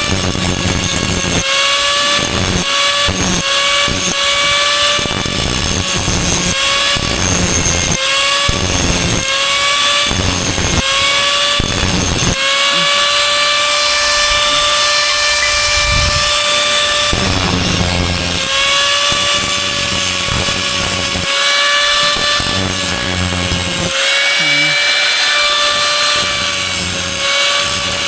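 Handheld power tool running at a steady high-pitched whine, its work noise coming and going in short repeated passes as it is pressed to the metal and lifted off.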